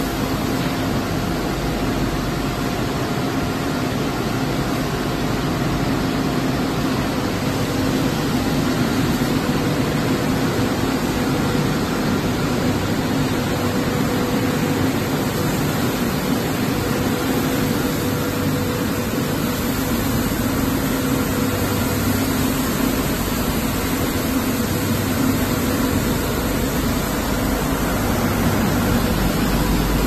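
Automatic stainless steel plastic pallet washing machine running: a steady wash of machine noise from its motors and water spray, with a constant low hum, growing slightly louder near the end.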